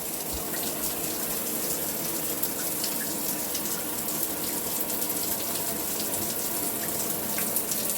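Water spraying steadily from a newly installed filtered shower head into a bathtub, left running to flush dust out of its bead filter.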